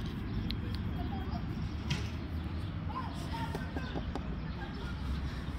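Outdoor park ambience: a steady low rumble with faint, scattered bird chirps.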